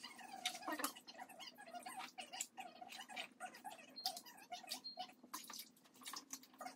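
Feathers being plucked by hand from chicken carcasses: a quick, irregular run of small rips and clicks.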